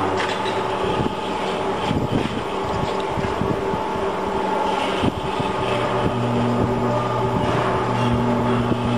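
Four-head spiral scourer making machine running as it feeds stainless steel wire: a steady mechanical hum with irregular sharp knocks, the low hum growing stronger about six seconds in.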